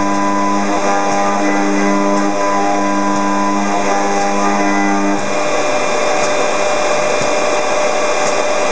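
Robot-held FIMEC milling spindle cutting aluminium: a loud, steady whine carrying several pitched tones. About five seconds in, the tones give way to a rougher, noisier cutting sound.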